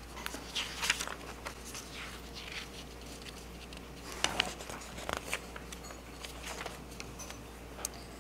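Paper pages rustling and being turned on a reading stand, in a string of soft scattered rustles with a few sharper flicks about four and five seconds in.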